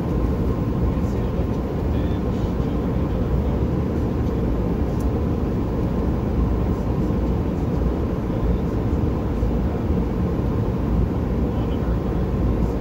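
Steady in-flight cockpit noise of a Bombardier Global Express business jet: a low, even rumble of airflow and engines, with a faint steady hum above it.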